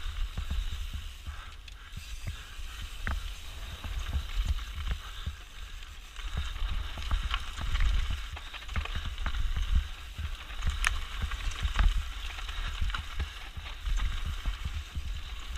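Mountain bike clattering over rough trail on a fast descent: many irregular clicks and rattles over a steady low rumble.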